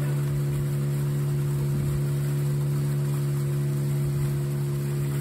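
Outboard motor of a wooden river boat running at a steady cruising speed, with an even drone.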